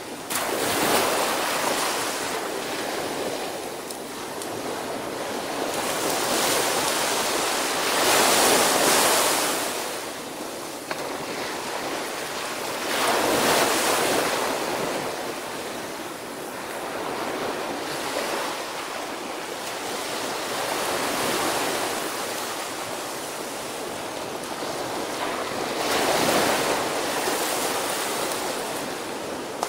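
Small surf breaking on a sandy beach and washing up the shore, the rush of each wave swelling and fading every few seconds.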